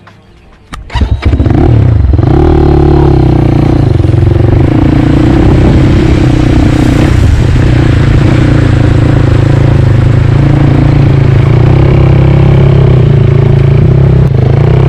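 CrossFire motorcycle's engine comes in suddenly about a second in and then runs loud and fairly steady, its pitch rising and falling only slightly.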